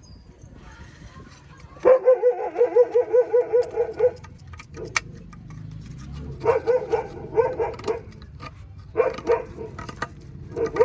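A small dog yapping in four quick runs of barks, fast and high-pitched, the longest about two seconds long; a few sharp clicks are heard between the runs.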